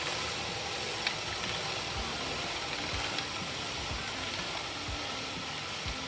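Elite Turbo Muin direct-drive fluid trainer spinning under a road bike being pedalled: a steady whir from the flywheel, chain and cassette, with a soft low thump about once a second.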